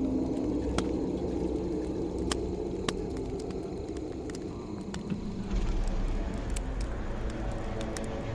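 Open wood-and-straw fire under a liquor still, crackling with scattered sharp pops over a low steady rumble; about five and a half seconds in, a louder hiss comes in.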